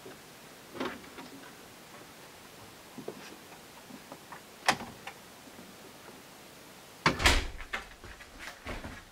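A door clicking open and shut, with a few faint knocks and a sharp latch click. About seven seconds in come louder thumps and clatter of footsteps and gear indoors.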